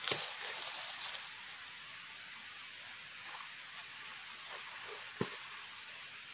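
Rustling of vegetation that fades within the first second, then a steady faint hiss of forest ambience with soft, scattered rustles of footsteps through grass and undergrowth, and one sharp snap about five seconds in.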